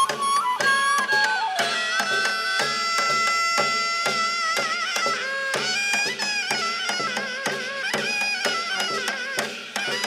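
Korean shamanic ritual music (gut accompaniment): a wind instrument plays long, wavering held notes over a steady beat of drum and percussion strokes.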